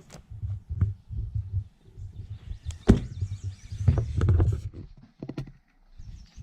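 Handling noise from a pistol case and its accessories: rustling and scattered clicks over a low rumble, with one sharp click about three seconds in and a burst of rustling just after.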